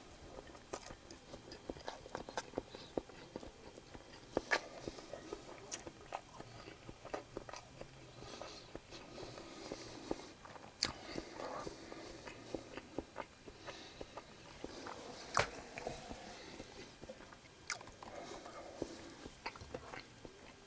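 Close-miked eating: a person biting and chewing food, with irregular sharp crunchy clicks and mouth smacks throughout.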